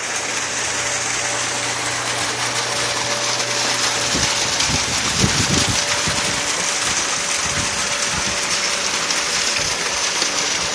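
Two wall-mounted spouts pouring steady streams of water into a small plunge pool, a constant splashing rush, with a low steady hum underneath. A few low rumbles come through about halfway.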